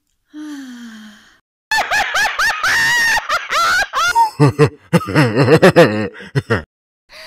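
Cartoon laughter sound effects. A short falling tone comes first, then a high-pitched, rapid giggle, then a deeper, hearty laugh in quick pulses that stops near the end.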